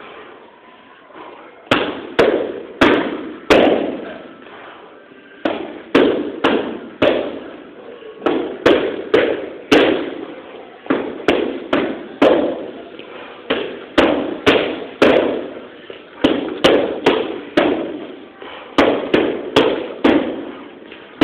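Boxing gloves punching focus mitts in quick combinations of two to four sharp smacks, each with a short echo, with gaps of a second or so between the flurries.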